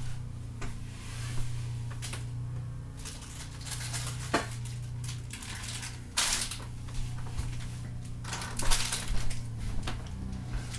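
Small hard objects clicking and clattering as they are rummaged through on a wooden chest of drawers, with a few short bursts of rustling, over a steady low hum.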